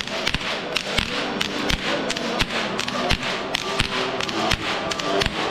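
Bavarian whip cracking (Goaßlschnalzen): a group of men cracking long whips in rhythm, sharp cracks about three times a second, with music faintly underneath.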